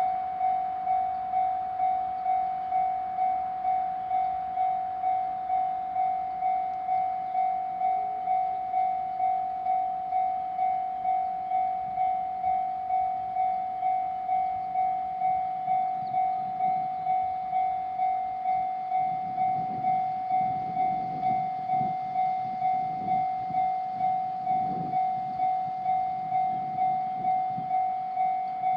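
Japanese railway level-crossing alarm ringing, one electronic bell tone repeating evenly about one and a half times a second. From a little past halfway, a JR Joban Line train runs past beneath the bell with a low rumble of wheels on rail, fading near the end.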